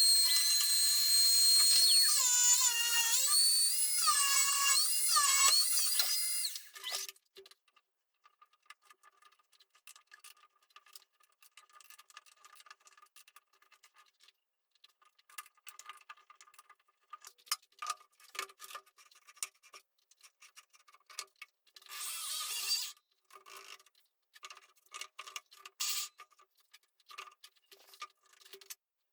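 A small power tool's electric motor whines at high pitch, its speed stepping and gliding up and down for about six seconds before stopping. After that come scattered light clicks and taps, with a brief noisy burst a little past the middle.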